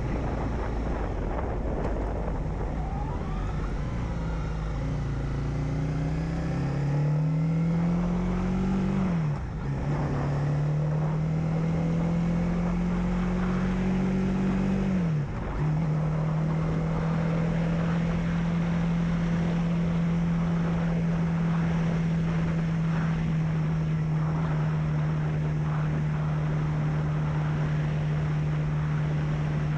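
Honda CB300F single-cylinder motorcycle engine accelerating, its pitch rising with two brief dips as the rider shifts up, about nine and fifteen seconds in, then holding steady at cruising speed. Wind rushes over the microphone throughout.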